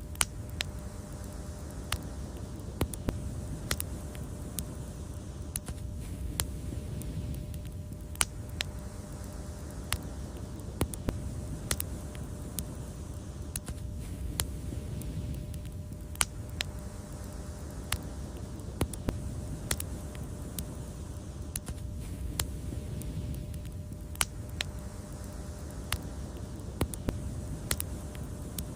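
Wood fire crackling, with sharp irregular pops and snaps, several every few seconds, over a steady low roar of the flames.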